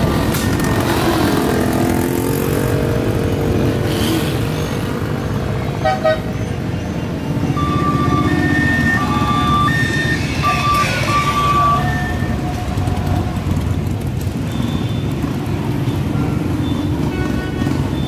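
Motorcycles, a scooter and trikes riding past in a slow procession, their engines running together as a continuous low rumble, with one engine revving in the first few seconds. From about eight to twelve seconds in, a horn sounds a string of short toots at two or three different pitches.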